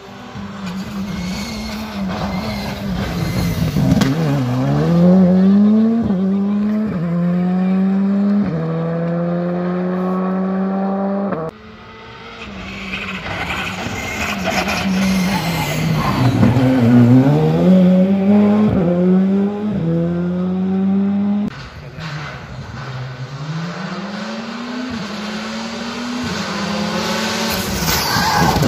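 Rally cars at full throttle passing on a stage, one per clip in three sharply cut clips. Each engine note dips as the car slows for the corner, then climbs again in steps with quick upshifts about a second apart as it accelerates away.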